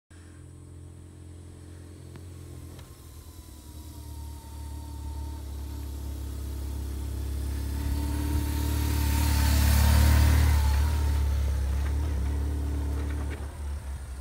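Motorcycle engine approaching, growing louder until it passes close by about ten seconds in, then fading as the bike rides away.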